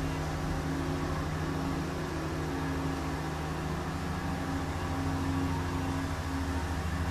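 A steady low mechanical drone with several held tones.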